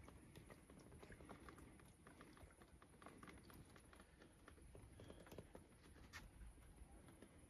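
Near silence with faint, irregular clicks and rustles.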